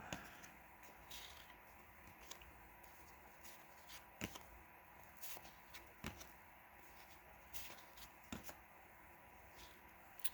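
Faint, scattered taps and slides of 1991 Donruss baseball cards being flipped through one at a time, about a dozen soft clicks spread unevenly over a faint steady hum.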